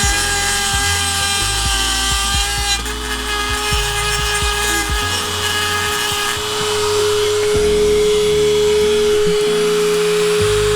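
Dremel 4000 rotary tool running at high speed with a steady whine, grinding down the cracked end of a muffler pipe so that it stops rattling, with background music over it. The whine gets stronger about three seconds in.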